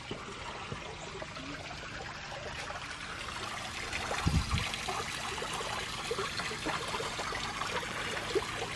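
Water trickling and splashing in a small carved-stone garden fountain, growing louder about three seconds in. A low thump about four seconds in.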